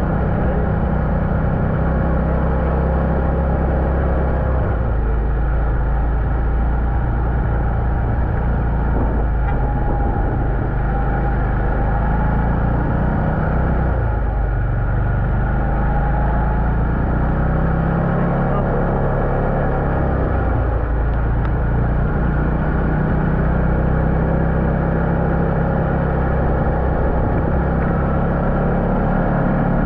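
ATV engine running steadily while riding, its note shifting a few times as the throttle eases and opens.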